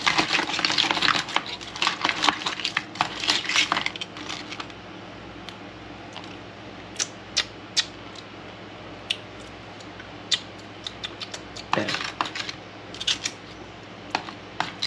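Raw black crabs being tossed with seasoning in a bowl: a dense run of hard clicking and clattering for the first four seconds or so, then scattered single clicks.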